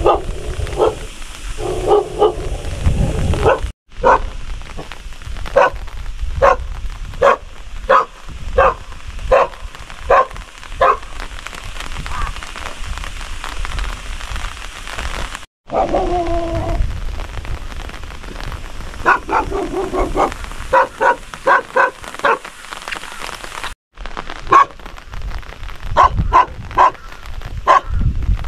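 A dog barking over and over in runs of short barks, against a steady hiss of rain.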